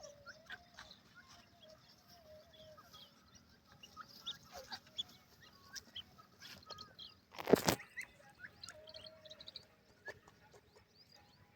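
Birds calling: many scattered short chirps and calls, with one loud, harsh call about seven and a half seconds in.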